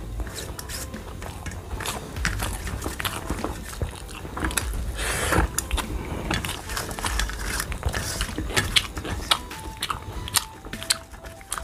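Close-up eating sounds: chewing and wet mouth smacks of rice and cabbage curry, with irregular sharp clicks as fingers mix the rice on a steel plate. A faint simple tune comes in about nine seconds in.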